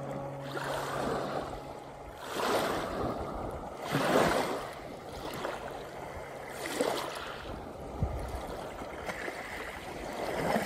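Small waves washing in over a pebble beach, swelling and falling back about every two to three seconds. A faint low held music note lingers under the first part.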